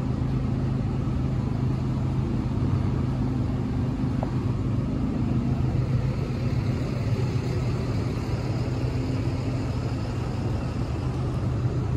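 A diesel truck engine idling: a steady low drone that stays even throughout.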